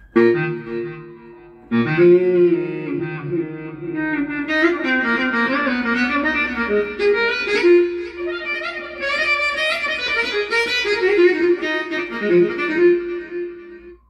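Korg Krome keyboard playing a melody over held chords, with some notes bent in pitch; a second chord comes in about two seconds in and the line gets busier from about four seconds.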